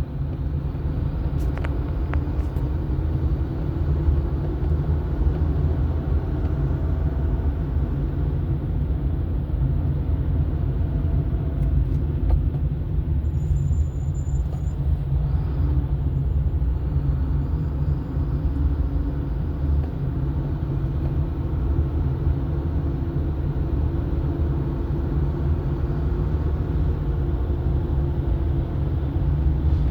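Car driving on the road: a steady low rumble of engine and road noise that goes on without a break.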